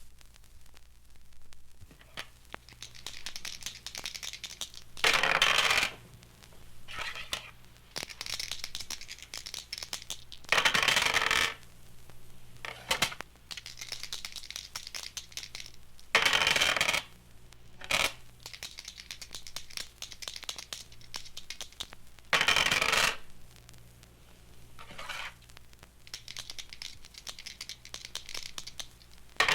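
A recorded sound effect: a run of small clicks and scratchy rustling, broken about every six seconds by a louder sweep lasting about a second, over a steady low hum.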